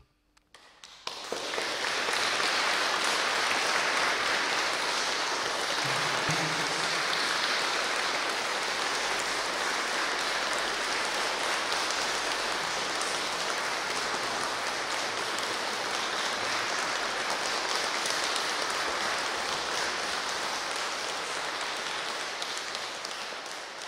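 An audience applauding, setting in about a second in and going on steadily, easing off slightly near the end.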